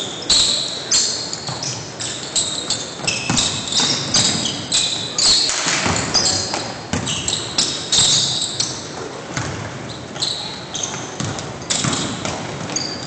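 Basketball game play in a gym: the ball bouncing on the hardwood floor and sneakers squeaking in many short, high chirps as players cut and stop.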